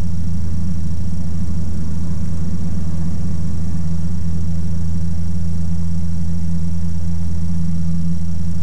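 Ikarus C42 microlight's engine and propeller droning steadily in cruise, heard from inside the cockpit, a low even hum with no change in pitch.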